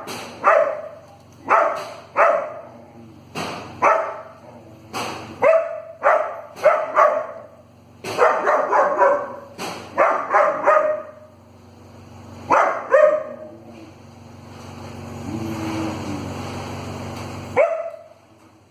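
A dog barking sharply and repeatedly, in quick bouts of two to four barks. Near the end the barking stops for a few seconds while a rush of steady noise swells, and then one final bark comes.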